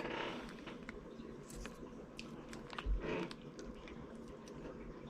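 A person chewing a mouthful of vegetable fried rice, with small wet clicks throughout and a louder smack about three seconds in.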